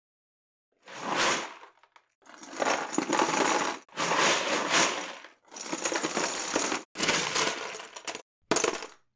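Sound effect of noisy clattering crashes, coming in about six bursts of a second or so each, the last one short.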